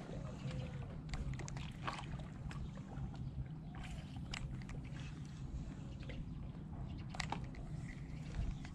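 Steady low rumble of wind on the microphone with water sloshing and lapping at the shoreline, dotted with irregular faint clicks and ticks.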